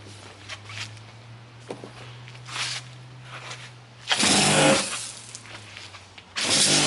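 Kärcher K7 Full Control pressure washer in its first use, set to its lowest power: a low steady hum, then two loud bursts of motor and water spray, one about four seconds in and one near the end.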